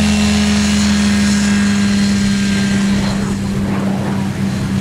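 Hiperlight ultralight biplane's engine and propeller at full power on its takeoff run: a steady drone at one pitch.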